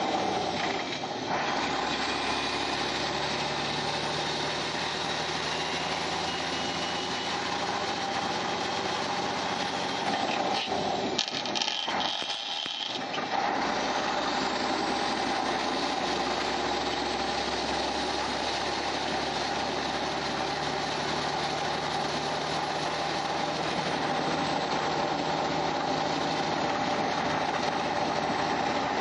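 Mack Econodyne 300 diesel engine of a loaded dump truck pulling steadily, heard from inside the cab. About eleven seconds in, the engine note breaks off and drops for a couple of seconds during a gear change on the 8-speed Eaton transmission, then builds again as it pulls in the next gear.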